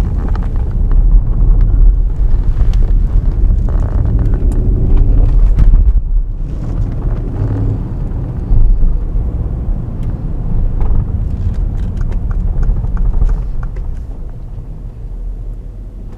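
Mercedes-Benz GL 63 AMG's 5.5-litre twin-turbo V8 running with a low rumble as the SUV drives through town, with road noise. The sound fades over the last few seconds.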